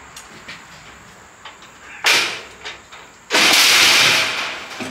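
Loaded floor jack being shoved across a steel mesh trailer deck: a short grating scrape about two seconds in, then a louder scraping rumble lasting about a second, as the heavy bandsaw base shifts and starts to roll.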